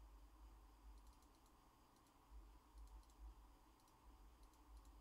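Near silence: room tone with a low hum and faint, scattered clicks.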